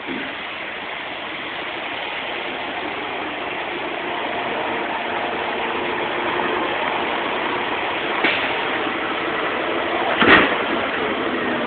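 Concrete pump truck's engine running steadily, growing slightly louder, with two sharp knocks, the louder one near the end.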